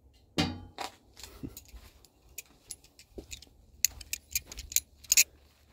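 Balisong (butterfly knife) being flipped: its metal handles and latch clack together in a run of sharp clicks. A louder clack comes just under half a second in, the clicks are sparse after it, and a quick flurry follows about four seconds in.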